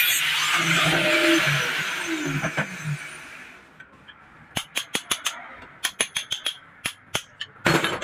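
Handheld angle grinder with a sanding disc grinding a small brass part, its hiss fading out and stopping about three seconds in. This is followed by a quick run of sharp metallic clicks and taps as the brass fittings are handled and fitted together, the loudest one near the end.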